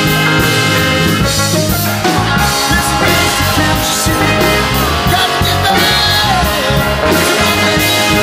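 Rock band with a brass section playing an instrumental passage: trumpet, trombone and saxophones over piano, electric bass, guitar, drum kit and congas.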